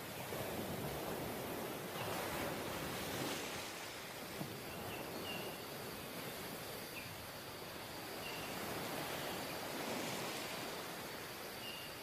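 Ocean surf breaking on a sandy beach: a steady wash of noise that swells and eases over a few seconds at a time.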